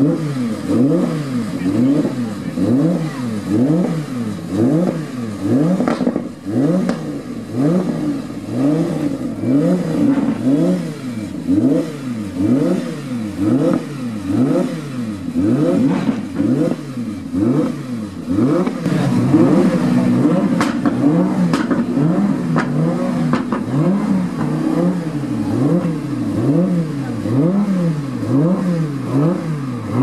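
Audi R8 V10 safety car's engine being revved again and again, the pitch climbing and dropping back about once a second. A steady lower engine note joins for a few seconds past the middle.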